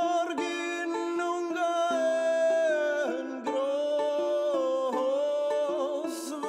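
Background music: plucked string instruments under a melody line that glides from note to note.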